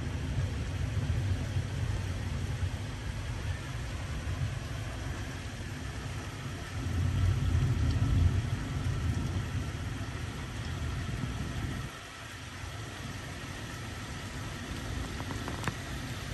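Heavy thunderstorm: steady downpour of rain with a low rolling rumble of thunder that swells a third of the way in and drops off sharply about twelve seconds in.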